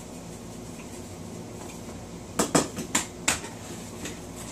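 Four sharp clacks and knocks in quick succession, about halfway in, as plastic seasoning shakers and spice jars are handled and set down on a tabletop.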